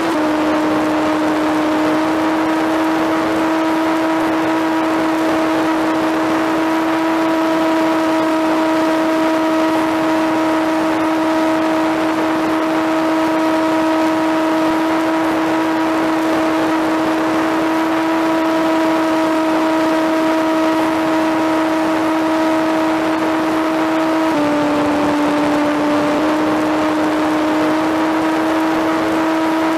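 Motor and propeller of an FPV flying-wing RC plane, heard from the camera on its airframe: a steady propeller whine at constant throttle over rushing wind. The pitch steps down slightly about 24 seconds in and comes back up two seconds later, following a throttle change.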